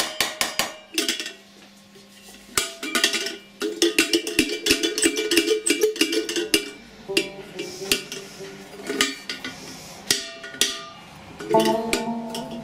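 Rapid light hammer taps on a chasing punch against a metal coffee pot, each tap ringing off the metal, in quick runs with short pauses. A plucked-string tune comes in near the end.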